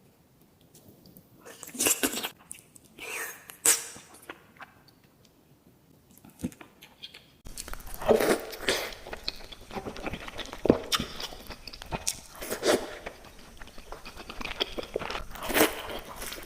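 Close-miked eating sounds: bites and crunchy chewing of sweets, a few separate crunches in the first seconds, then, after an abrupt cut about seven seconds in, denser chewing with many small crunches and smacks.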